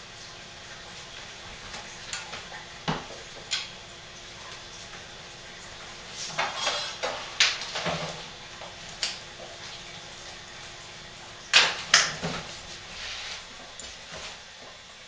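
Scattered knocks and clunks of soap bars and a long soap-log mold being handled on a table, with two louder knocks in quick succession about two-thirds of the way through.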